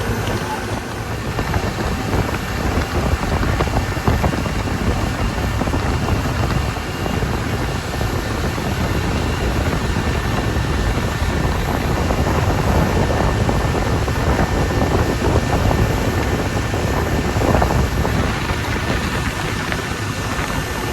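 Tour boat under way: a steady engine rumble mixed with wind and water rush, with wind buffeting the microphone.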